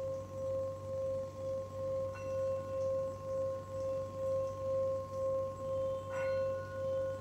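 Metal singing bowl sung by circling a wooden mallet around its rim: a steady ringing tone that swells and fades about twice a second. A higher overtone joins about two seconds in and grows stronger after a brief scrape of the mallet about six seconds in.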